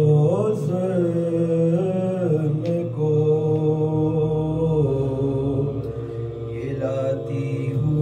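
Unaccompanied male voices chanting a devotional lament, a lead singer on a microphone holding long notes that slowly bend and slide in pitch.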